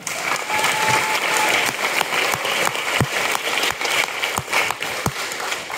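Audience applauding: many people clapping at once.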